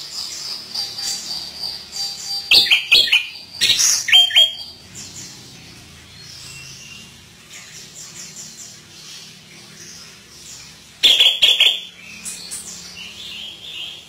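Caged chestnut-capped thrush (anis kembang) singing a varied song with mimicked phrases. It opens with a held high whistle, then gives loud, sharp, rapid phrases about two and a half seconds in, again about four seconds in, and once more near the end, with softer chattering between.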